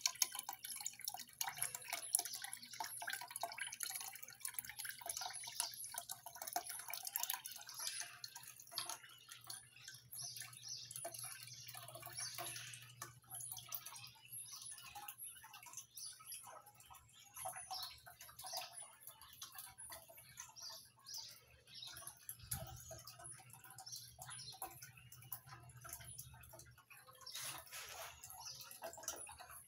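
Small tin bucket on a miniature wishing-well fountain pouring a thin stream of water into its basin: a steady, faint trickle and patter of drips.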